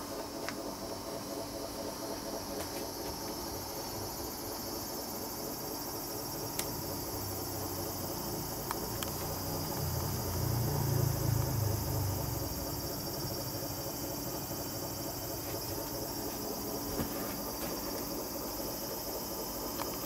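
Cicadas buzzing outside in a steady, high-pitched drone, with a brief low rumble about ten seconds in.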